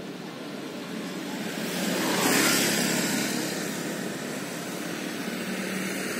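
A road vehicle passing: tyre and engine noise swells to a peak about two seconds in and fades away, then begins to rise again near the end as more traffic approaches.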